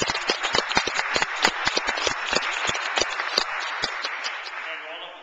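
Audience applauding, with sharp hand claps close by, then dying away near the end.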